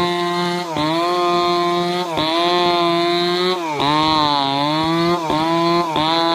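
Stihl two-stroke chainsaw running at high revs while ripping a log lengthwise. Its pitch sags and recovers about five times as the chain bites into the wood.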